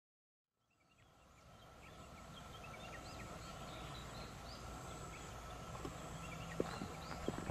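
Outdoor ambience fading in after about half a second of silence: birds chirping in many short calls over a steady high hum. A few sharp knocks start near the end.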